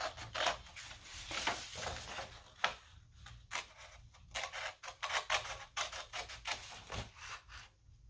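Scissors snipping through a sheet of red paper: a quick, irregular series of crisp cuts, with a short pause near the end.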